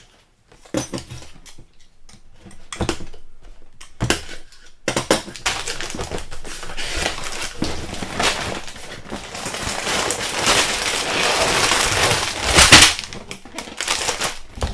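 A cardboard box being opened and its contents handled. Scattered knocks and clicks come first, then several seconds of continuous rubbing and rustling as the lid comes off and its contents are taken out, with one louder clatter near the end.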